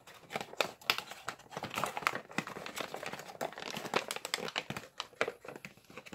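Origami paper crinkling and rustling as it is opened out and worked along its creases by hand, in many short, irregular crackles.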